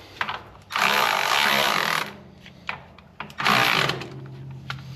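Cordless power tool running nuts down onto housing studs: one run of about a second, then a shorter burst, with light metal clicks between.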